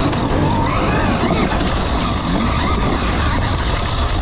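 Electric KTM dirt bike ridden over a rocky gravel track, heard from the rider's helmet: a steady rush of wind and tyre and chassis noise over the stones, with the electric motor's whine gliding up and down as the throttle changes.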